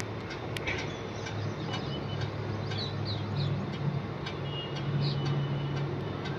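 Aircraft engines running with a steady low drone that edges up in pitch about halfway through. Birds chirp briefly over it.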